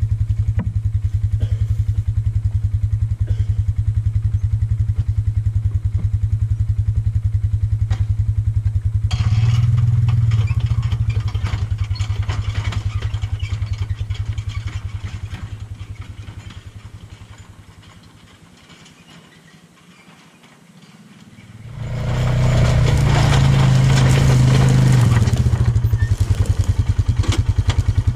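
Small utility vehicle's engine idling with an even pulse, then speeding up as it pulls away towing a loaded trailer wagon and fading into the distance. About 21 seconds in it is loud and close again, running hard for a few seconds before settling back to idle.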